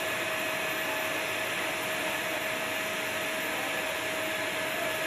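Steady rushing noise of running turbine or blower machinery around a parked aircraft, with a high whine held on one pitch throughout.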